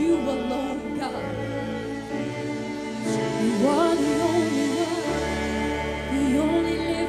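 Live gospel worship music: a solo voice sings a sliding, ornamented melody over sustained chords and a low bass.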